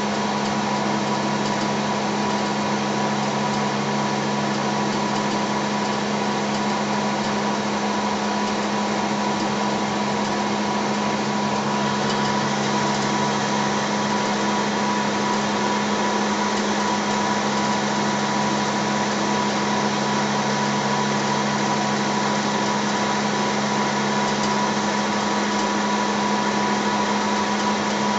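A small machine running steadily: a constant hum with a steady higher whine over a rushing noise.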